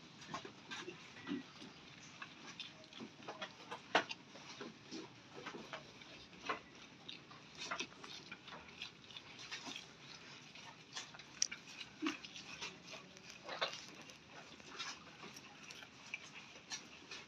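Jawarandu goats feeding at a wooden trough: irregular crunching and tearing of fresh grass, rustling fodder and small knocks against the wood.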